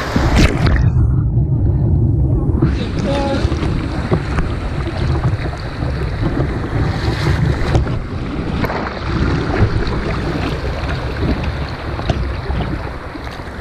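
Rushing whitewater around a kayak with repeated paddle splashes, heard from a camera on the boat's deck, with heavy wind buffeting on the microphone. The sound turns muffled for about a second and a half near the start.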